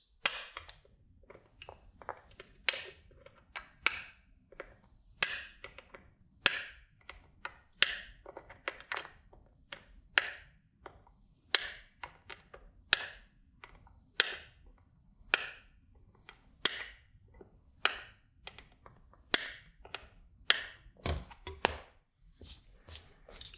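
Side cutters snipping the excess leads off soldered LEDs on a circuit board: sharp snips one after another, a little less than one a second, each followed by faint ticks. Near the end the board is handled with a short low rustle.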